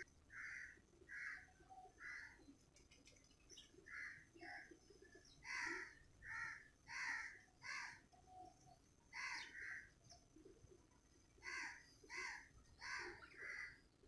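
House sparrows chirping: a string of short cheeps, roughly one or two a second, with brief pauses.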